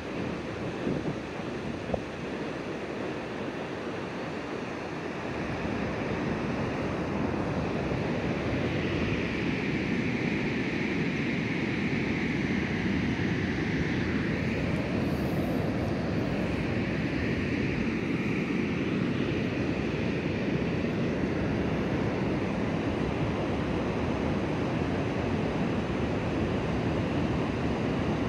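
Steady rushing noise of wind and moving river water, with a few light clicks in the first two seconds. It grows louder about six seconds in, and a hissing band sweeps up and down through the middle.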